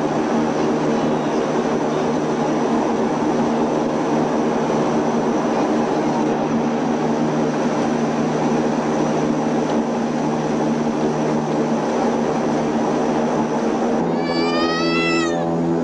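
Cabin drone of an Antonov An-24's two turboprop engines and propellers: a steady hum under a constant hiss. About fourteen seconds in, the hum's pitch shifts abruptly and a brief high tone rises and falls.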